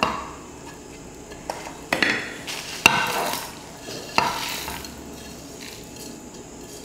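A spoon knocking and scraping against dishes several times as the roasted masala ingredients are tipped together into a mixer-grinder jar for grinding.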